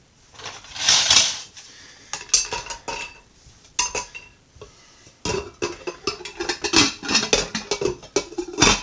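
Serving spoons clacking into the ceramic crock inserts of a triple slow cooker, then glass lids clinking and rattling as they are set onto the crocks, with short ringing clinks. A brief rustle about a second in.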